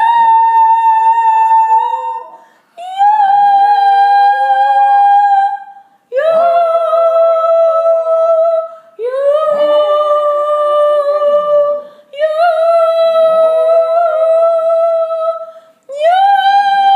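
A dog howling in six long held notes, each about three seconds long, scooping up in pitch at the start and then holding steady, with short breaks between them.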